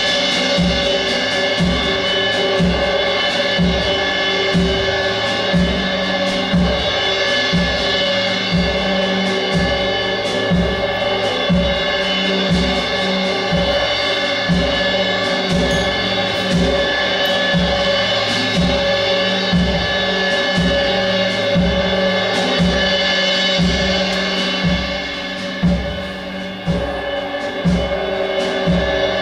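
Live percussion music: a steady beat of low drum strokes under a sustained, many-toned ringing drone, dipping briefly in loudness near the end.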